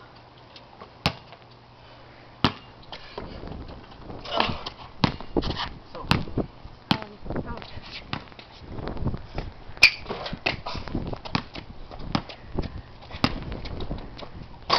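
A basketball thudding on a concrete driveway and banging off the hoop: scattered sharp knocks at irregular intervals, more frequent in the middle, with indistinct voices in between.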